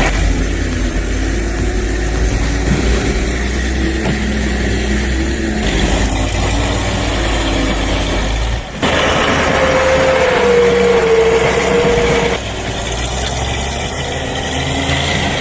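Heavy machinery engines running steadily. The sound changes abruptly about nine seconds in, when a steady whine joins, and changes again about twelve seconds in.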